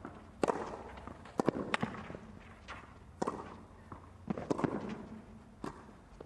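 Tennis rally on a clay court: sharp racket strikes on the ball and its bounces, traded back and forth about once a second.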